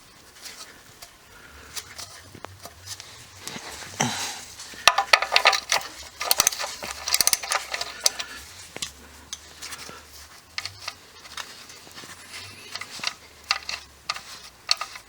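Metal clinks and light knocks of a socket wrench and the oil drain plug being handled as the plug is backed out of the oil pan, with a burst of ringing clinks about four to eight seconds in.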